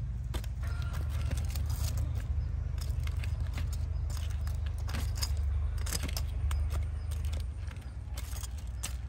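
Metal kitchen tongs clicking and clinking repeatedly while lifting grilled snake pieces off a wire grill, over a steady low rumble.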